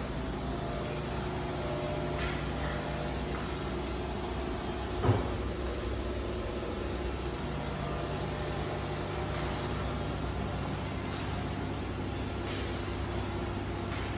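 Steady machinery hum and hiss in a machine shop, with a single sharp thump about five seconds in.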